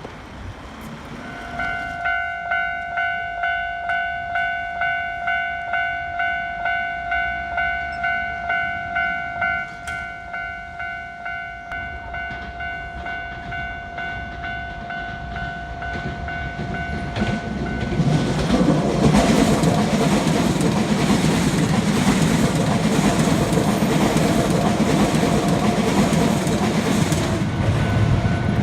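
Japanese railroad crossing alarm ringing its electronic 'kan-kan' bell, a repeating two-tone ding about one and a half times a second, starting a second or two in. About eighteen seconds in a train runs through the crossing, and the rumble of its wheels and cars drowns out the bell.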